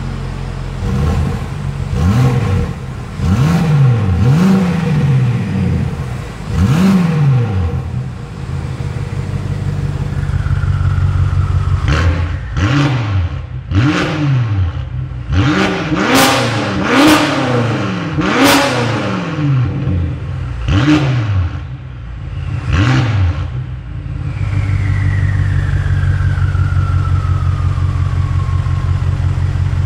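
BMW F86 X6M's twin-turbo V8 through an Fi valved aftermarket exhaust, idling and then blipped repeatedly in free revs. The first revs are with the exhaust valves closed. Later the valves are open and the blips come quicker, sharper and brighter. A thin falling whistle follows as it drops back to a steady idle near the end.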